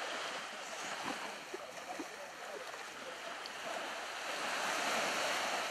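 Shallow seawater sloshing and splashing as a group of people wade through it, over a steady wash of gentle surf that grows a little louder about five seconds in.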